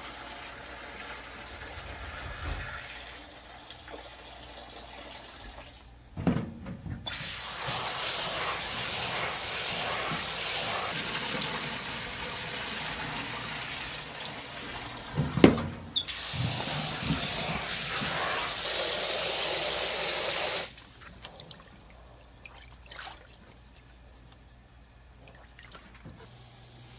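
Tap water running into a metal bowl of rice at a stainless-steel sink for about a dozen seconds in the middle, broken briefly by a sharp metal clank of the bowl. Before and after, quieter splashing as the rice is swirled and rinsed by hand.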